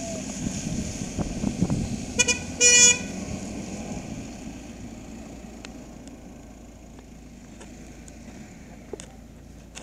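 A vehicle horn sounds twice about two seconds in, a brief tap then a longer toot. Under it is the rumble of slow-moving vehicles, which fades away over the following seconds.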